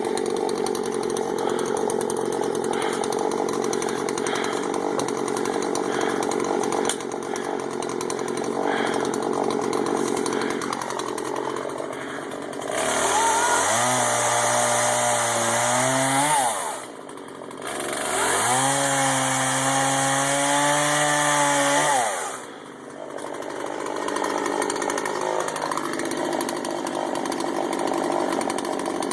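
Gas-powered two-stroke chainsaw idling, then revved to high speed twice for a few seconds each, the pitch climbing sharply and dropping back to idle between and after.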